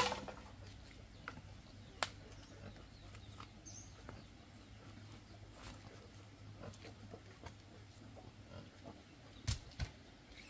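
Wild boar grunting faintly amid small scuffling clicks, with a sharp knock right at the start, another about two seconds in, and two dull thumps near the end.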